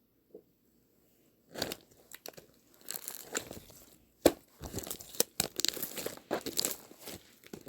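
Crinkling and rustling handling noise with sharp clicks, starting after about a second and a half of near silence; the loudest click comes about four seconds in.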